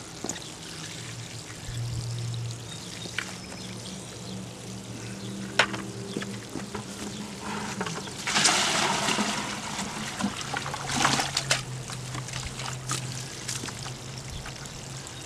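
Muddy water being poured from a five-gallon plastic bucket into another bucket: a rushing pour starting about eight seconds in and a shorter splash about three seconds later, with water trickling in between. Under it runs a steady low hum, and there is a single knock about halfway through.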